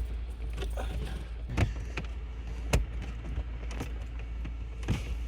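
Plastic trim tangs clicking and knocking as a VW California's control-panel surround is pushed back into the roof console, with three sharper clicks about a second apart among fainter taps, over a steady low hum.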